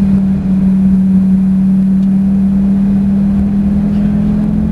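Lamborghini engine heard inside the cabin, running at steady revs as a constant drone while the car cruises at about 35 mph.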